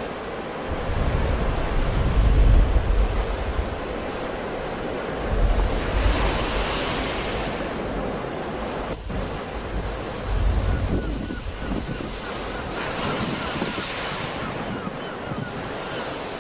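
Sea waves breaking and washing up the shore in a steady surf noise, with louder surges about a second in, about five seconds in and about ten seconds in.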